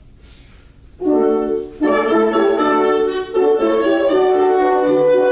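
French horns and other brass of a concert band playing held notes together in harmony. They come in sharply about a second in and break off briefly twice.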